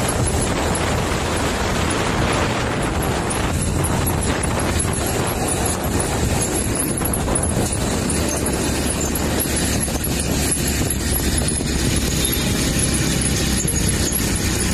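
Steady engine and road noise from a moving vehicle, an even rushing with a low hum underneath.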